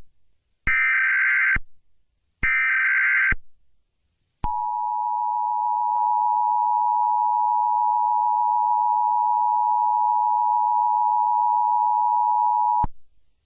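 Emergency Alert System audio: the last two SAME header data bursts, each about a second of warbling digital data tones. After a short pause comes the steady two-tone EAS attention signal, held for about eight seconds before it cuts off, announcing a flash flood warning.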